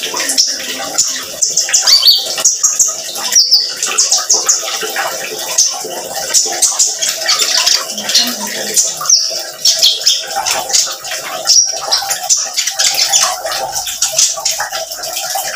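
Male copper-throated sunbird (konin) singing its rapid, high-pitched 'nembak' song, a dense run of sharp chirps and trills with hardly a break, over trickling water, with wing flutters as it darts about the cage.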